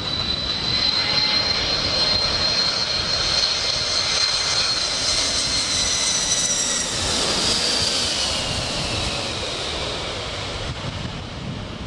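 Air France Boeing 747's four jet engines on low final approach, flying close overhead: a steady high-pitched whine over a loud rush of jet noise. About seven seconds in, the whine drops in pitch as the airliner passes and moves away, and the sound eases toward the end.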